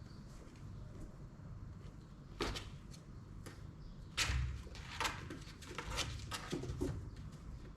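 Kittens scrabbling and scratching against the cardboard of their box: a string of short scrapes and knocks, the loudest about halfway through and several more in quick succession near the end.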